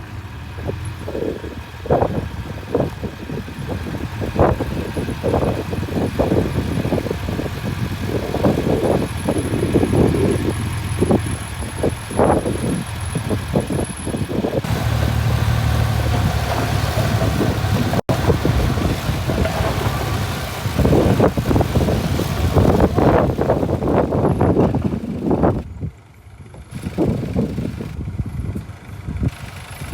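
Diesel engine of a Mitsubishi BD2F bulldozer working while it pushes soil, its drone overlaid with frequent irregular clanks and knocks. For a few seconds in the middle the engine holds a steadier, heavier note, and about halfway through the sound breaks off briefly.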